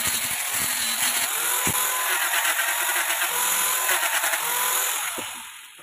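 Angle grinder with a sanding disc running against wood, sanding a hollowed wooden bowl with a steady high whine and rough rasping. The sound dies away about five seconds in.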